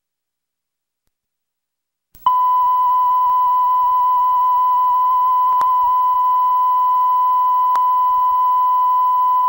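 Silence, then about two seconds in a steady television line-up test tone starts abruptly: one pure, unchanging pitch, played with colour bars at the head of a broadcast videotape.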